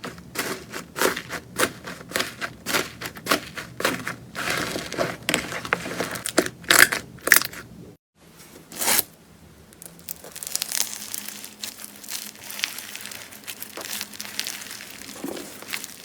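Slime being squeezed and pressed by hand, giving rapid crackling pops. About halfway the sound cuts out and gives way to a softer, steadier squishing rustle with fewer pops.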